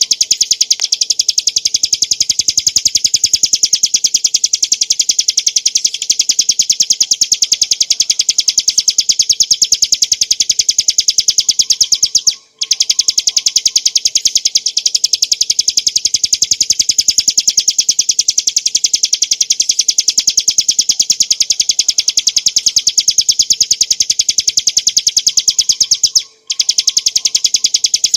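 Ciblek gunung (a prinia) singing a rapid, continuous run of high, sharp notes. The song breaks off briefly about halfway through and again near the end.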